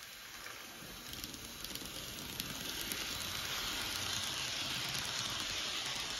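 N scale model train (Kato MP36PH locomotive with bi-level coaches) running on the track. It makes an even, high rushing noise of small wheels on rail and running gear that grows louder over the first few seconds as the coaches pass close by.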